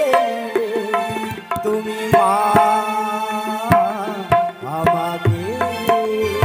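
Live folk-theatre accompaniment: tabla-style hand-drum strokes with booming bass notes that bend in pitch, under a wavering melody played on a sustained instrument.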